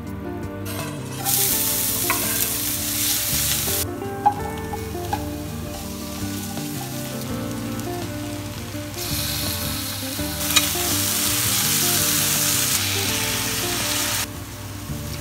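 Diced vegetables sizzling in oil in a stainless steel frying pan, in two loud stretches: one starting about a second in, and a longer one in the second half. Between them come a few sharp clicks of a utensil against the pan. Soft background music plays underneath.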